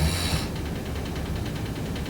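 A sleeping person snoring. A low, rattling snore ends about half a second in, followed by a quieter stretch of breathing before the next snore.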